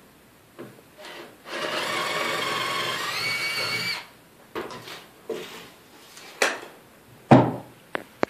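Cordless drill running for about two and a half seconds, its pitch stepping up partway through, followed by a few scattered knocks and taps.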